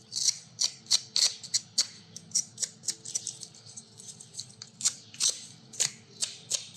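A well-worn stiff brush scrubbing the front brake assembly clean during a pad change, in quick scratchy strokes at about three a second, uneven in pace and strength.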